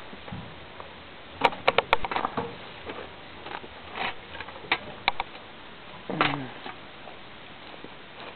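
Quick clicks and taps as Fox Terriers play fetch with a ball: a fast run of four or five sharp clicks about a second and a half in, a few single taps around four to five seconds, and a short sound sliding down in pitch a little after six seconds.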